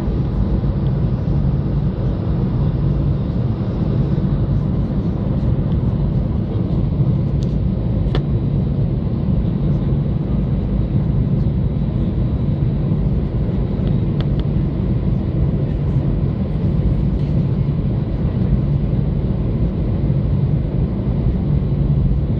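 Cabin noise of an Airbus A320 taxiing, heard from a window seat beside the wing: its CFM56-5A1 engines running at low taxi power, giving a steady low rumble and hum that does not rise or fall.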